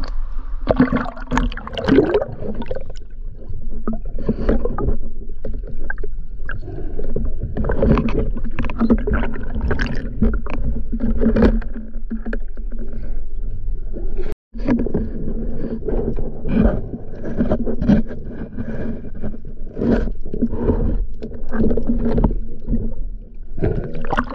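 Sea water sloshing and splashing around a GoPro housing as a spearfisher swims at the surface and dives; the sound cuts out for a moment about fourteen seconds in.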